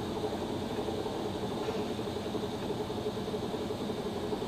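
A 1940 American 38-inch-swing engine lathe running under its 30-horsepower spindle drive at one of its higher spindle speeds. It gives an even machine hum with one steady held tone.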